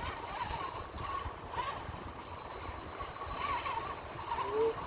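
1/10-scale RC rock crawler's brushless motor and drivetrain whining, the pitch rising and falling with the throttle as it crawls over rocks.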